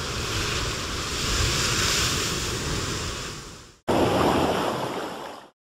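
Wind and rushing sea water on a sailing boat, heard as a steady noise. It cuts off sharply about four seconds in and starts again at once in a second stretch that ends abruptly.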